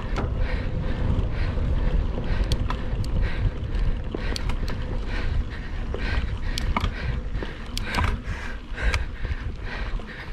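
Wind buffeting the microphone and tyre rumble of a mountain bike ridden on a trail, with scattered sharp clicks and rattles from the bike.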